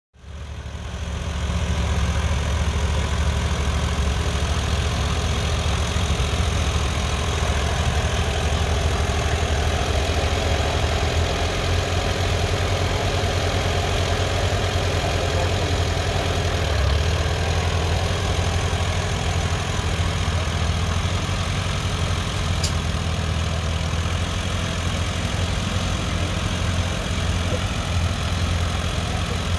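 Small vintage Allis-Chalmers tractor's engine running steadily at low throttle, a low, evenly pulsing beat that holds level throughout.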